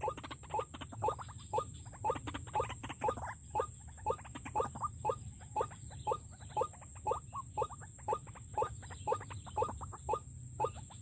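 White-breasted waterhen (ruak-ruak) calls used as a trapping lure: a short rising note repeated evenly about twice a second.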